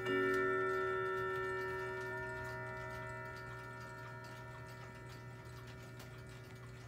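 Howard Miller Lewis triple-chime wall clock striking the hour: one stroke right at the start, which rings on and slowly fades. This is the final stroke of the count, and the pendulum clock's ticking goes on faintly underneath.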